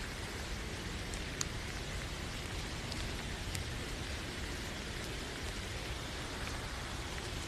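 Steady rainfall, an even hiss of rain with now and then a single louder drop ticking.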